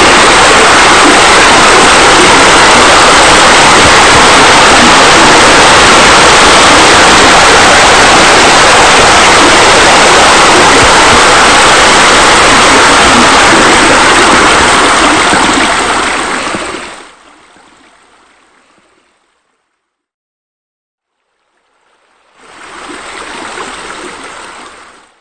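Steady rush of splashing, falling water from pool water features: spillways and deck jets pouring into the pool. It fades out about two-thirds of the way through, and after a few seconds of silence a shorter, quieter rush of water comes back near the end.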